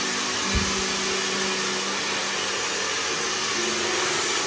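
Hand-held hair dryer blowing steadily while hair is blow-dried over a round brush: an even rushing hiss with a steady low hum underneath. A brief low thump comes about half a second in.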